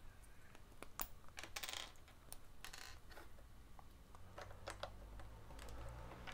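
Plastic LEGO Technic bricks and pins clicking and rattling faintly as they are handled and pressed onto an assembly: a scatter of light, irregular clicks.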